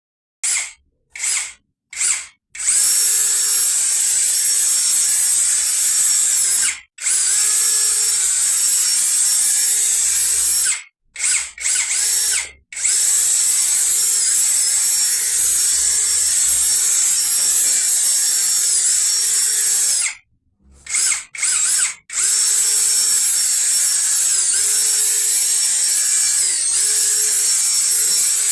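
Cordless drill spinning a cleaning brush to scrub a nozzle. It starts in a few short trigger blips, then runs in long steady stretches with a high motor whine that dips in pitch briefly several times. It stops twice, each time followed by short blips before it runs steadily again.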